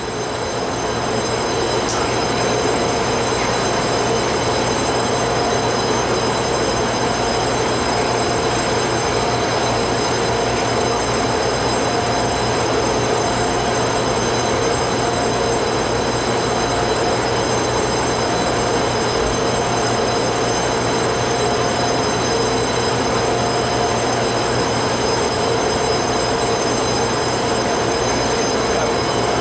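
Steady hum of a TRA passenger train standing at the platform, its on-board equipment running, with a steady whine and faint high-pitched tones above it.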